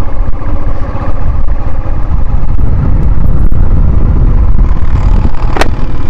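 A motorcycle on the move, with heavy wind noise on the microphone covering most of the engine. A single sharp click about five and a half seconds in.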